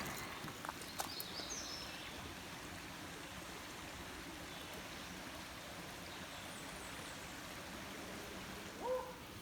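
Steady rush of a flowing creek, with a few faint high bird chirps about a second in. Near the end comes a short rising call, the loudest sound.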